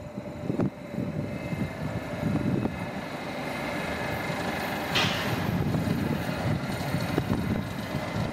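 Electric multiple unit, a Stadler FLIRT, running past on a far track: a steady rumble of wheels on rails with a faint whine from its traction equipment. A short hiss comes about five seconds in.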